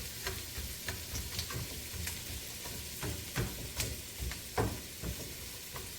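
Chopped onions sizzling in melted butter in a hot pan as they caramelize, with a steady frying hiss. A utensil stirring them clicks and scrapes against the pan several times.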